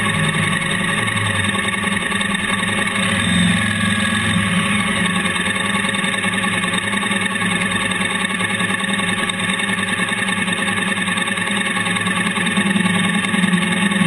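Honda NC700X motorcycle's parallel-twin engine running at low speed with a steady engine note as the bike slows and comes to a stop.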